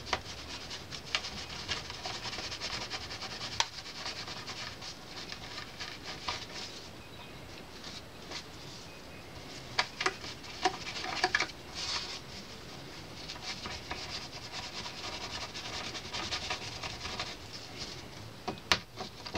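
Cotton swab scrubbing old grease that has hardened into a crust off a small tonearm part: a steady fine scratchy rubbing with small ticks, and a few louder clicks in the middle and near the end.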